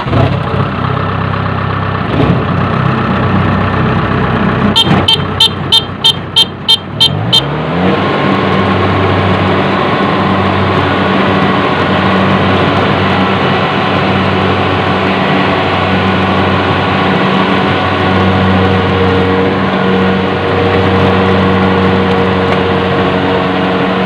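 Rice combine harvester engine running loud and steady, heard from the operator's seat. About five seconds in, a quick run of about eight short high beeps sounds. Then the engine speeds up and settles into a steady drone as the machine starts harvesting.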